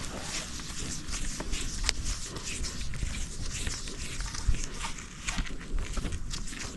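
Cord being wound by hand around a wooden stick: irregular rustling and scraping of rope on wood with scattered small clicks, over a low, uneven rumble of wind on the microphone.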